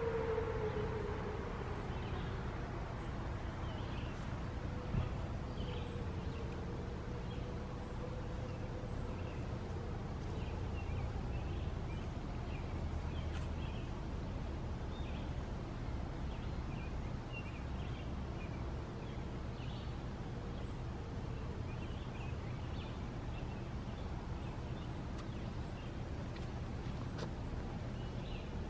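Outdoor warning siren tone sliding down in pitch and dying out in the first second or two. A fainter siren tone lingers and fades away over about the next ten seconds. Then outdoor ambience remains: a steady low rumble with scattered short bird chirps.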